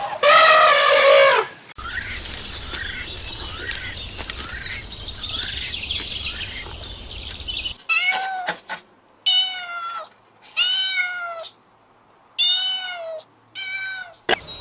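Cat meowing: one loud meow at the start, then after a stretch of background noise with faint chirps, a run of five or six short meows a second or so apart.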